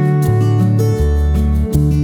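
Background music led by an acoustic guitar, with plucked notes over a shifting bass line.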